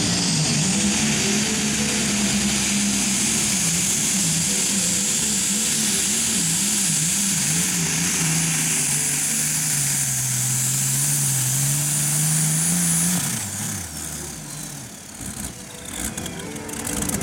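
Light modified pulling tractor's multi-cylinder engine running flat out under load during a pull, its pitch wavering up and down, with a high whine above it. About 13 seconds in the throttle shuts off and the engine winds down, the whine sliding down with it.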